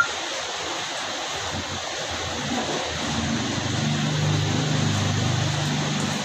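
Steady hiss of background noise, with a low droning hum that comes in about halfway through and eases off near the end.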